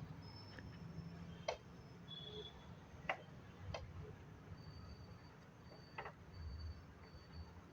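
Faint, sparse metallic clicks, four in all, of a spanner working the threaded nut on a car AC condenser pipe fitting as it is tightened.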